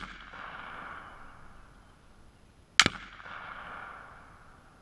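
A single rifle shot about three seconds in, echoing away over about a second and a half; the fading echo of a shot fired just before is heard at the start. There is no explosion: the self-mixed exploding target does not go off, which the shooter puts down to measuring the mix wrong.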